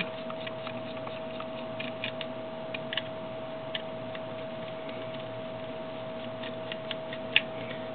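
A few faint, scattered clicks and ticks of a small screwdriver turning screws out of the PocketWizard Flex TT5's plastic case, over a steady background hum.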